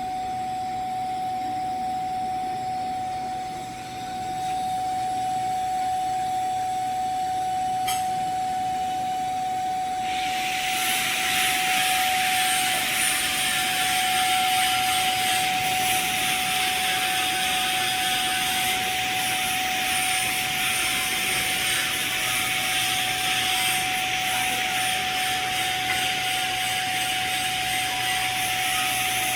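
TIG welding arc: a click, then the arc strikes about ten seconds in and hisses steadily to the end. A constant high whine runs underneath throughout.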